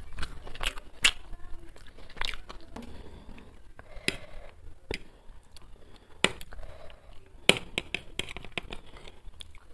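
Close-up eating sounds: a metal fork clicking and scraping on a ceramic plate as chow mein noodles are twirled, mixed with wet chewing, in sharp irregular clicks.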